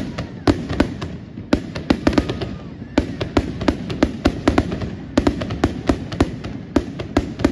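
Fireworks going off: a rapid, irregular string of sharp cracks and pops, several a second.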